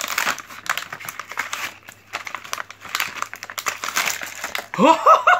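Very thin PET plastic blister pack being torn and crinkled open by hand: a dense run of crackles and rips. A voice, laughing, breaks in near the end.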